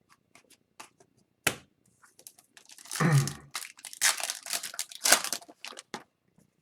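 Foil wrapper of a hockey card pack being torn open and crinkled, with a sharp click about a second and a half in and a loud tear about three seconds in, followed by dense crackling until near the end.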